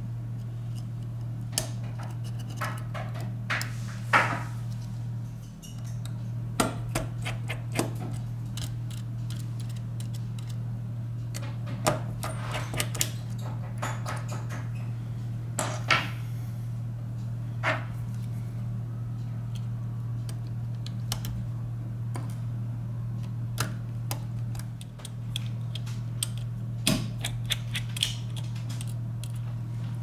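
Irregular sharp clicks and light taps of metal tweezers and a plastic spudger on the parts of a disassembled Samsung Galaxy A3 smartphone, over a steady low hum.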